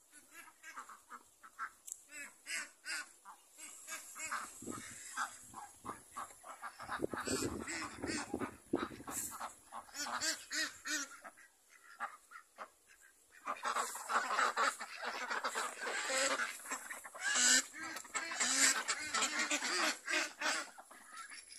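A flock of Pekin ducks quacking, many short calls repeated and overlapping, growing denser and louder about halfway through.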